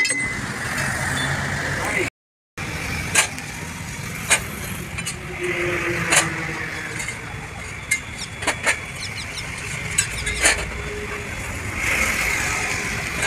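Irregular sharp metallic knocks and clinks as a steel bar is worked against the top mounting of a tipper body's hydraulic lift ram, over steady traffic noise.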